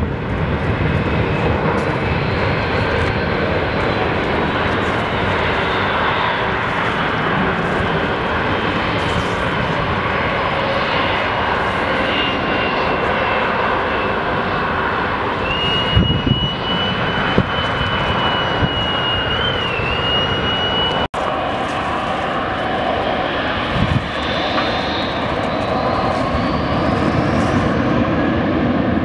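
Airbus A320-family airliners' turbofan engines at takeoff power: a steady jet roar with a thin high whine, broken off by a sudden cut about two-thirds of the way through. A second airliner's roar follows, with an engine whine rising in pitch near the end as it powers up.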